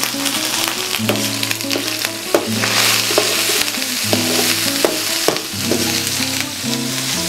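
Tomato, onion and garlic sofrito sizzling in oil in a steel paella pan while a metal slotted spoon stirs it, scraping and clicking against the pan now and then. Background music plays quietly underneath.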